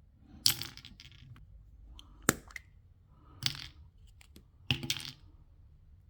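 Plastic gashapon capsule shells being handled, giving sharp clicks and short clatters in about four bursts.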